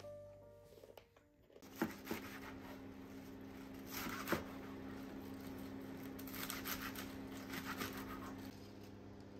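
Kitchen knife slicing leafy greens on a wooden cutting board: a few sharp knocks of the blade on the board and short runs of crisp cutting through the leaves, over a steady low hum.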